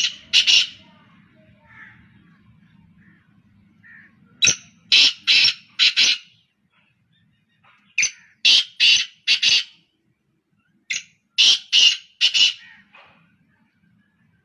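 Caged male black francolins calling. Each call is a phrase of four or five loud, harsh notes, repeated every three to four seconds.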